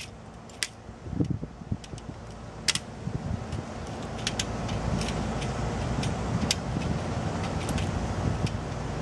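Small sharp clicks and clinks of pliers working on the metal and plastic parts of a printer's scanner assembly, scattered irregularly. From about three seconds in, a low rumble builds underneath and holds.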